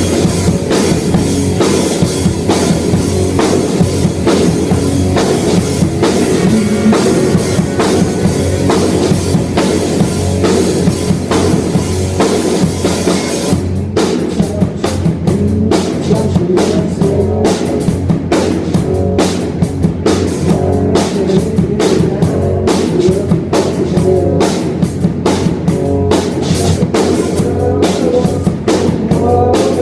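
Live rock band playing loud on stage: drum kit and electric guitar with no vocals. About halfway through, the steady cymbal wash drops away and the individual drum hits stand out.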